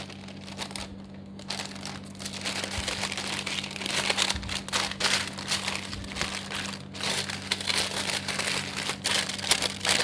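Baking paper crinkling and rustling as it is folded and crimped shut around a fish to seal a papillote parcel. The crinkling is faint at first, then turns into dense, irregular crackles from about a second and a half in.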